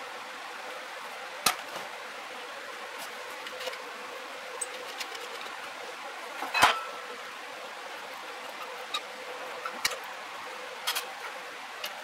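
A few sharp metal clicks and clinks as small parts and tools are handled. The loudest, about halfway through, is a ringing clink of a wrench set down in a metal parts dish. Under them runs a steady low hiss and a faint hum.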